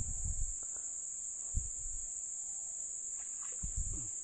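Insects chirring in one steady high-pitched drone, with a few short low thumps at the start, about a second and a half in, and near the end.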